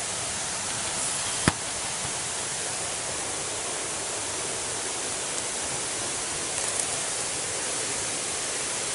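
Steady, even rushing hiss of outdoor background noise, with a single sharp click about a second and a half in.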